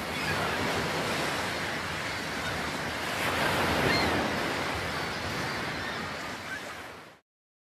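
Ocean surf: waves breaking and washing up a sandy shore in a steady rush that swells a little around the middle and fades out near the end.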